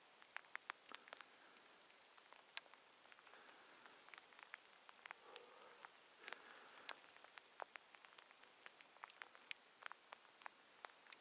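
Near silence: a faint outdoor hush with scattered small ticks at irregular intervals.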